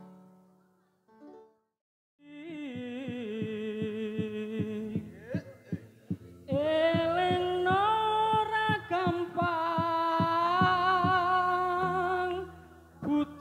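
Live band music: after a short pause, a long, wavering melody is hummed without words over quick drum strokes.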